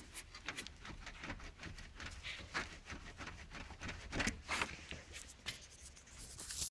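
Irregular knocking and clicking from a Skoda Octavia A7's radiator mounts, over a low steady rumble, with the loudest knocks about two and four seconds in.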